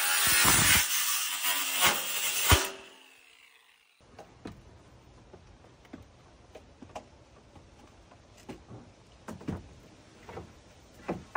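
Angle grinder's cutting disc cutting through a ribbed steel roofing panel, then spinning down with a falling whine about three seconds in. After that, only faint scattered knocks and taps.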